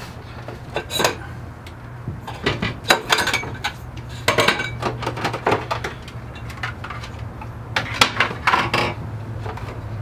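Hard plastic items knocking and clattering against a clear plastic storage bin as they are handled and packed into it, in several irregular bursts of clicks and knocks. A steady low hum runs underneath.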